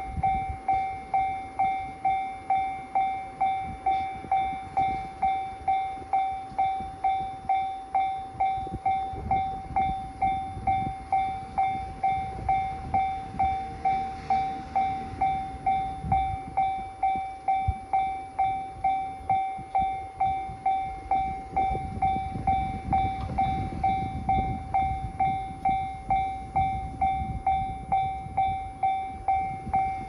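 Japanese railway level crossing warning bell ringing steadily at about two strikes a second, with the barriers down, signalling an approaching train.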